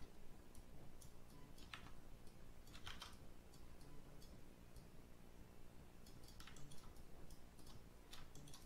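Faint, scattered computer keyboard keystrokes and mouse clicks, a few at a time, over a low steady hum.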